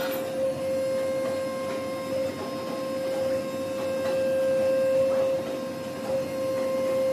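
CNC vibrating-knife fabric cutter running as it cuts fabric: a steady, even hum with a whirring noise beneath it.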